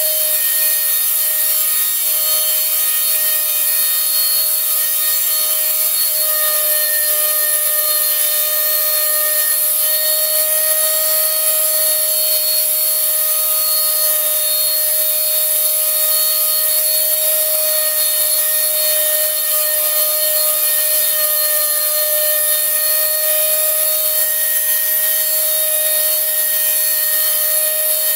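A power tool's motor running steadily with a strong high hiss, unbroken and without change.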